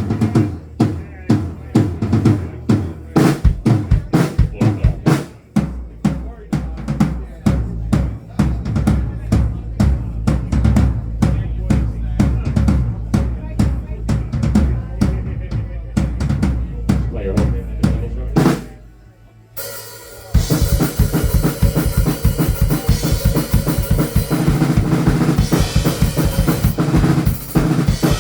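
Drum kit being played during a band's sound check: a steady run of kick and snare hits with low sustained bass notes underneath. The playing drops out briefly about two thirds of the way in, then comes back denser, with cymbals washing over it.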